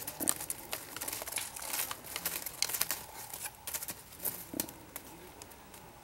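Dry leaf litter and twigs rustling and crackling underfoot: a quick, irregular run of small crackles and snaps.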